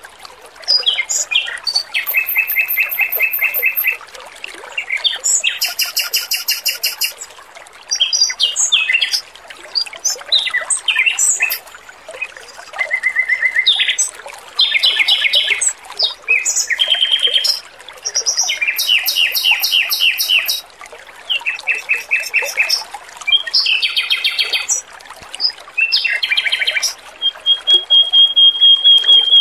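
Male Pekin robin (red-billed leiothrix) singing in phrases of rapid, evenly repeated trilled notes, about a second each, over a steady trickle of running water. Near the end it holds one long, level whistle.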